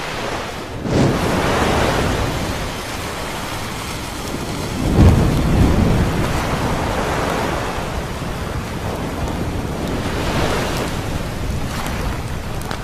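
Atomic bomb explosion sound effect: a noisy blast wave builds about a second in, a heavy low boom hits about five seconds in, then a long, steady rumble with smaller swells follows.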